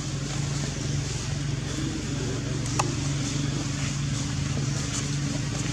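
A steady, even motor hum over a background hiss, with a brief click a little under halfway through.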